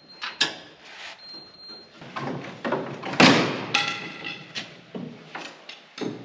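Metal clanking and scraping as steel parts are handled inside a John Deere combine's feederhouse: a series of sharp knocks, the loudest about three seconds in, followed by a brief metallic ring.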